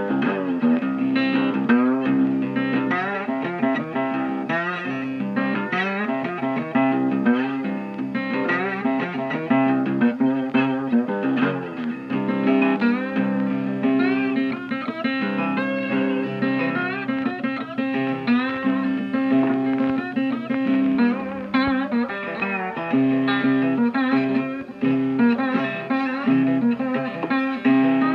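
Instrumental background music led by guitar, its notes bending and sliding over steadily held low notes.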